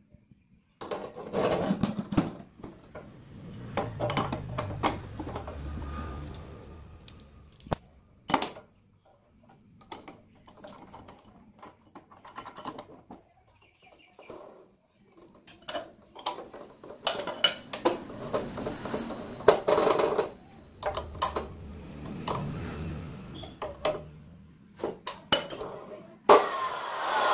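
Metal clinks, knocks and clattering as a new abrasive cutting wheel is handled and fitted onto the spindle of a cut-off saw. About a second before the end the saw's motor switches on, a loud sustained whine as the wheel spins up.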